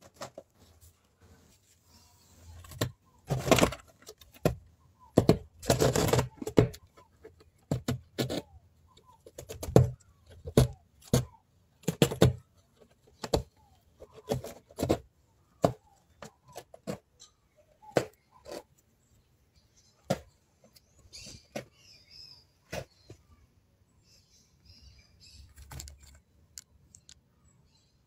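Young rabbits gnawing and tearing a cardboard box: irregular sharp crunches and clicks, with louder rasping tears about three and six seconds in.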